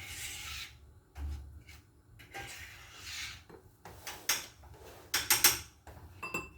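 Lemon-dipped cookies being rolled in sugar: a run of short gritty rubbing scrapes, the loudest about five seconds in.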